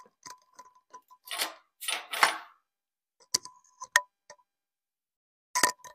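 Small sharp clicks and taps from handling an epoxy syringe pressed into the injection port of a cast iron table joint, with a few short hiss-like puffs about one and two seconds in.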